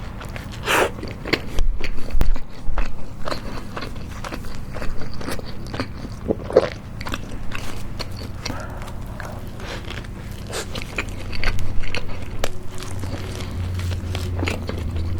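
Close-miked chewing and biting of a homemade burger, with many crisp crunches from the toasted bun. A low hum swells near the end.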